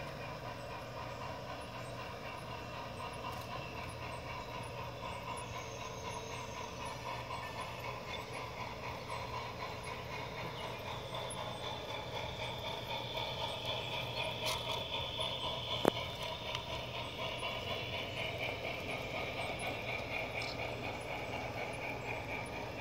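G-scale model freight train rolling past on garden railway track: a steady rhythmic clatter of wheels and running gear with a faint mechanical whine. It grows louder toward the middle as the cars pass close. There is one sharp click about sixteen seconds in.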